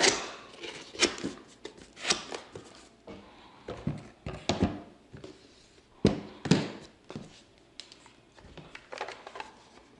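Handling sounds: scattered knocks, taps and rustling as a small battery chainsaw and its packaging are picked up, moved and set down.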